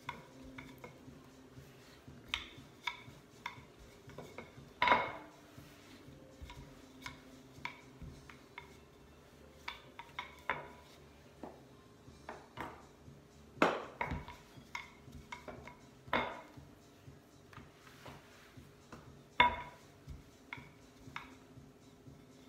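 Wooden rolling pin working shortcrust pastry on a granite worktop: irregular clacks and knocks as the pin is rolled, lifted and set back down on the stone, with a few louder knocks among them.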